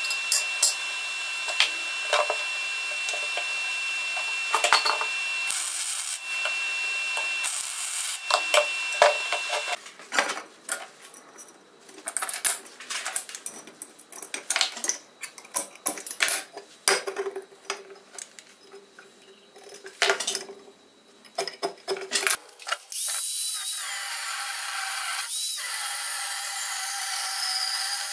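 A steady hiss with a high steady tone and sharp clicks, then quieter irregular clicks and scrapes of a tape measure and marking on square steel tube. About 23 seconds in, an angle grinder starts cutting the steel tube and runs steadily.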